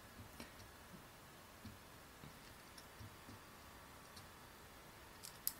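Near silence: room tone with a few faint ticks, then two sharper clicks close together near the end, the click of a computer mouse.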